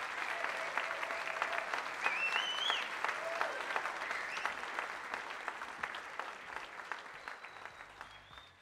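Large audience clapping, with a short shrill rising call from the crowd about two seconds in; the applause fades out toward the end.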